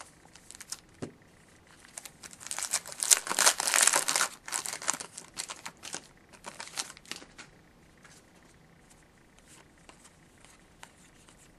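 Hockey card pack wrapper being torn open and crinkled, loudest from about two to five seconds in, then lighter rustling and small ticks that fade out.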